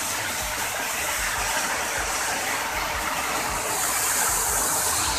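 Steady rush of a waterfall close by, a continuous even noise of falling water.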